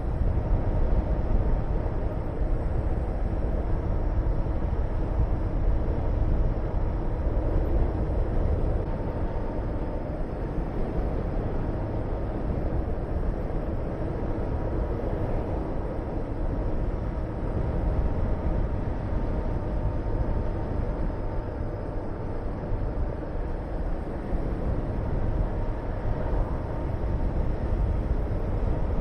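Honda VTR250's V-twin engine running at a steady speed on the move, under heavy wind rush on the camera's microphone.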